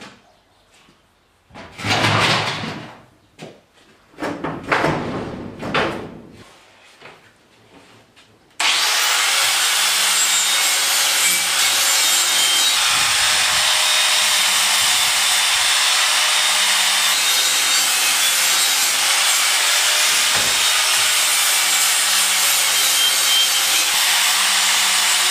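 Angle grinder working on steel: a loud, steady hiss that starts suddenly about eight and a half seconds in and holds even. Before it come a few scattered clicks and two louder bouts of scraping and clattering.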